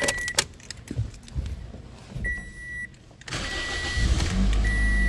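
Toyota Corolla engine cranking and catching a little past three seconds in, then settling into a steady idle: it now starts and keeps running with a replacement ECM fitted, the old ECM having been faulty. Short high beeps sound several times.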